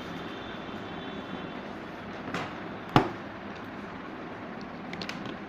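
Steady room noise, broken by a single sharp knock about three seconds in, a softer one just before it, and a few light clicks near the end: objects being handled and set down on a desk.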